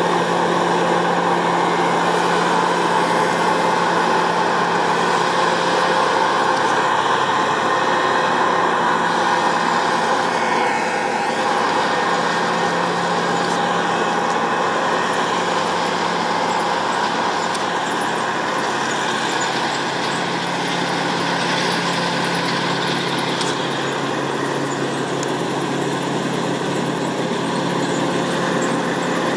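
Massey Ferguson 7360 PL Beta Paralevel combine harvester running steadily under load while harvesting, its engine hum mixed with the whir and rattle of the header and threshing machinery.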